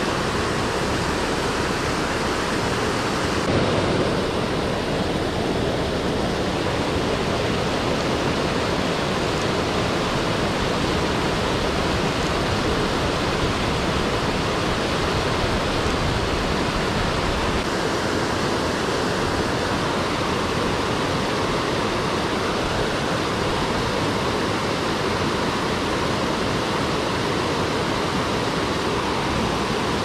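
Steady rushing of a small creek cascading over rocks, an even, unbroken water noise.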